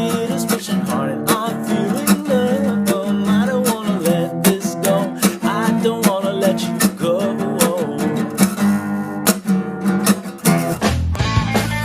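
Background music: strummed acoustic guitar with a bending melodic lead line over it. Near the end it switches abruptly to a heavier, bass-heavy rock section.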